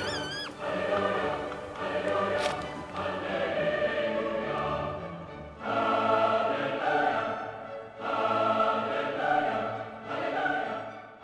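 Choral music: sustained sung chords in long phrases, with short breaks about five and a half and eight seconds in.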